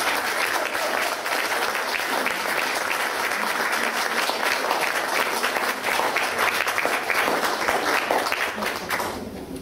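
Audience applauding steadily, a dense patter of many hands clapping, which dies away about nine seconds in.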